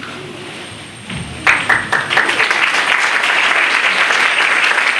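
Audience applauding, breaking out suddenly about a second and a half in and then continuing steadily.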